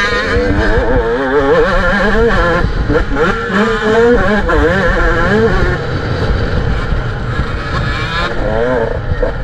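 A 125 cc pit bike's engine is being ridden hard on a dirt track. The revs rise and fall over and over with the throttle and gear changes, heard over a rumble of wind on the rider's helmet microphone.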